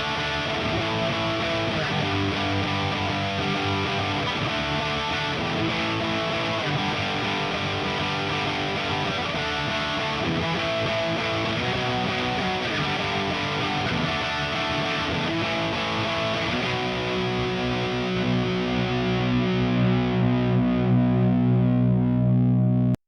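Distorted electric guitar, a Kramer Baretta Special with a Seymour Duncan DDJ bridge pickup played through a Diezel VH4 tube head and a Marshall 4x12 cabinet. It plays busy riffing with many quick notes, then about sixteen seconds in switches to held, ringing chords that cut off abruptly at the end.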